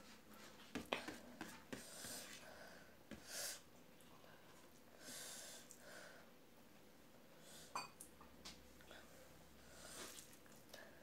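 Quiet hand-eating sounds: a few short breaths through the nose every few seconds, with soft clicks and taps from fingers working rice on a steel plate, the sharpest about a second in.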